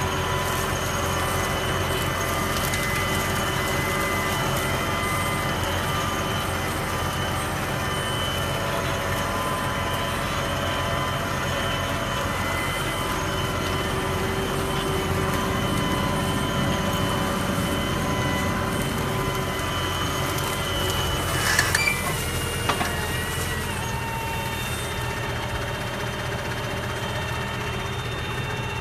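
Heavy farm machine running steadily, its engine hum carrying steady whining tones, with a few sharp cracks about three-quarters of the way through.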